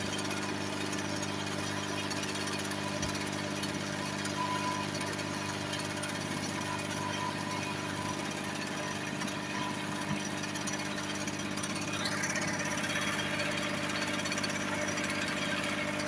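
Steady low machine hum with a hiss over it, the hiss growing a little louder and brighter about twelve seconds in.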